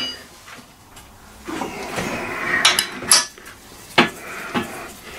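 Ring spanner working the nut on the axle bolt of a small rubber wheel: a short scraping sound, then four sharp metal clicks and clinks in the second half.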